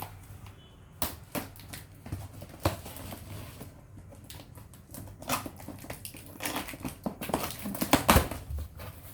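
Cardboard box and its packing being opened and handled by hand: irregular rustling, scraping and small knocks, busier and louder toward the end.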